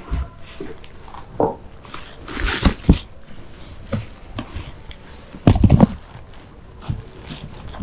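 Rustling and scattered soft knocks of someone settling into a massage chair and putting their legs up on a towel-covered rattan footrest, with a burst of rustling about two and a half seconds in and a few heavier thumps about five and a half seconds in.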